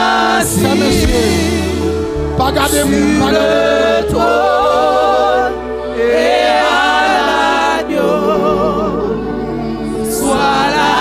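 Women's voices singing a slow gospel worship song into microphones, with vibrato on long held notes, over steady sustained low accompaniment.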